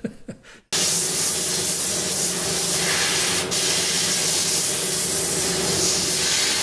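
Goldsmith's gas soldering torch hissing steadily as its flame heats a silver filigree piece. The hiss starts abruptly under a second in and holds at an even level.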